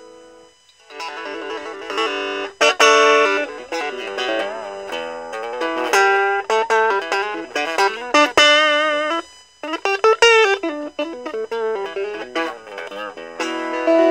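Electric guitar played through a Raizin "Vintage Champ Box" effects pedal. It plays a run of single-note lines with bent, wavering notes, starting about a second in, with a brief pause about two-thirds of the way through.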